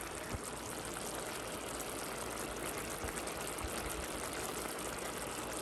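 Chicken stir-fry sauce simmering in a nonstick pan on a gas burner: a steady sizzle and bubbling as the cornstarch-thickened sauce reduces over low heat, with a few faint knocks.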